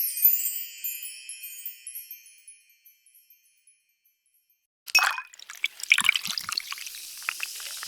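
A sparkly chime sound effect, many high ringing tones dying away over the first couple of seconds. After a stretch of silence, a dense run of sharp crackling clicks starts about five seconds in.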